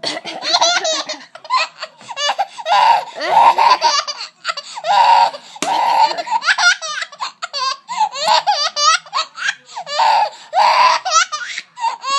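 A baby belly-laughing in repeated bursts of high, gliding squeals and breathy giggles, over and over with short gaps.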